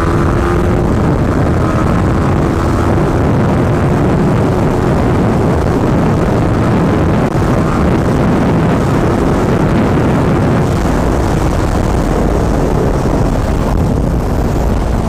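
Yamaha R15M's 155 cc single-cylinder engine running hard at high road speed, about 110 km/h, under heavy wind rush on the microphone. The engine note rises slightly in the first second.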